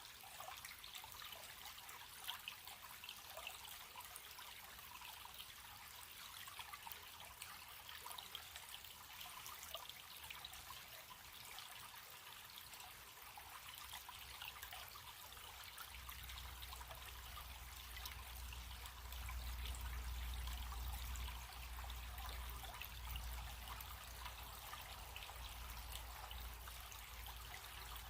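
Running stream: a steady rush of water full of small splashes. About halfway through, a low rumble joins in and swells for a few seconds before easing.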